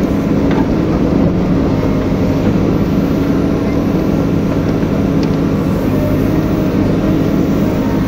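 JCB backhoe loader's diesel engine running steadily under digging load as the backhoe scoops and lifts mud, heard from inside the cab.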